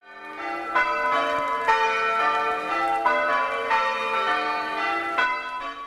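Church bells pealing, several bells struck in turn with new strikes about every second and their ringing overlapping; the sound fades in at the start.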